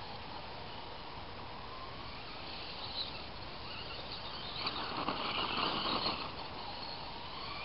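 Tamiya Blackfoot RC monster truck's electric motor whining, its pitch rising and falling with the throttle, and its tyres crunching over gravel. The sound is loudest where the truck passes close, around five seconds in, over a steady hiss.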